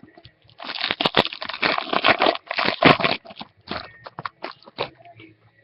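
Foil trading-card pack wrapper crinkling as it is torn open, a dense run of crackles that thins out into scattered ones.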